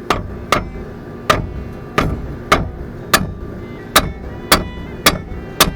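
Hammer striking metal on a pickup's front brake assembly, about ten sharp blows at a steady pace with a short metallic ring after each, knocking a stuck bolt loose.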